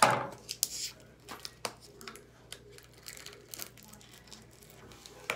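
Crunchy foam slime squeezed and stretched in the hands, giving scattered irregular crackles and clicks from the foam beads. A louder sound opens it.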